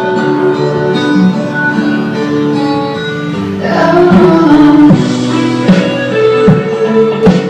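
A song with guitar accompaniment and a singing voice, with drum-like hits in the second half.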